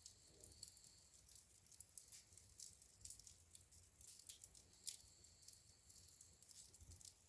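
Wood fire in a fireplace crackling faintly: small sharp pops and snaps at irregular moments, several a second, over a faint low rumble.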